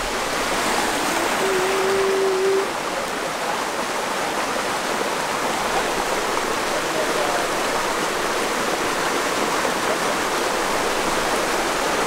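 Steady rush of running water. A short held hum sounds about a second in.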